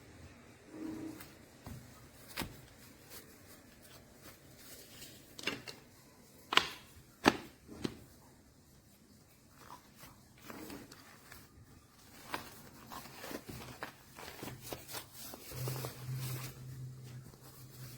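Handling noise from small hard objects: scattered light clicks and taps, with two sharper clicks about six and seven seconds in, and a low hum coming in near the end.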